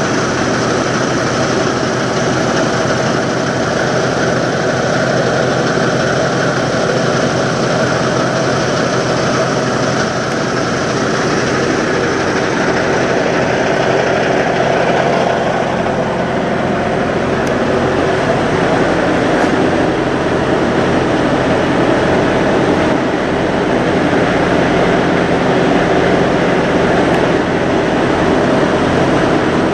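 Semi-truck diesel engine idling steadily at close range.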